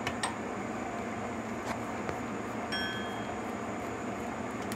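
A few light metallic clicks and a brief high ping as a tool and the valve inspection cap are handled on a Suzuki 125cc dirtbike's cylinder head, over a steady background hiss.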